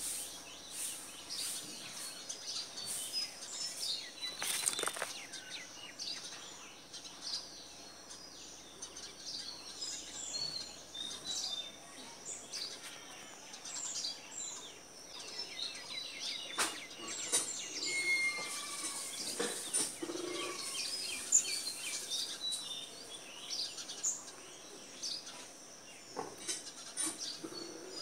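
Small birds chirping and twittering over a steady high hiss, with a few sharp clicks or taps mixed in.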